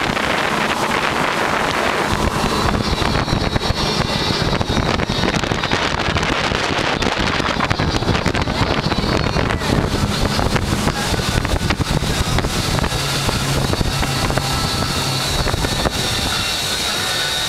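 Open power boat running at speed: a steady low engine drone under heavy wind buffeting on the microphone.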